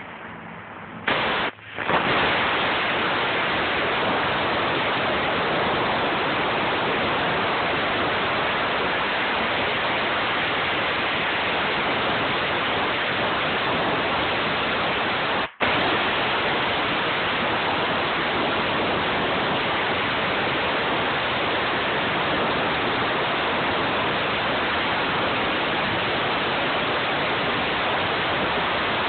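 Compressed-air blow gun hissing steadily as it blasts dust out of an open desktop computer case. The blast starts about a second in after a brief stutter, and cuts out for a moment about halfway through.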